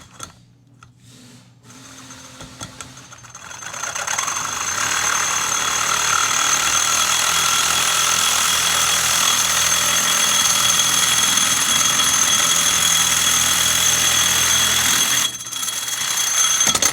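Power tool motor running steadily with a high whine for about eleven seconds, coming up gradually at the start and changing briefly just before it cuts off.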